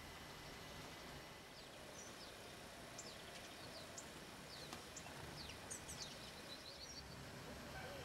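Faint outdoor background with a scatter of short, high, thin calls from small songbirds, clustered between about a second and a half and seven seconds in.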